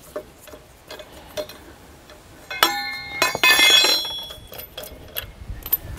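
Steel lug wrench and lug nuts on a trailer wheel clinking: a few faint clicks, then a bright, ringing metallic clank about two and a half seconds in and another just after three seconds, dying away within a second.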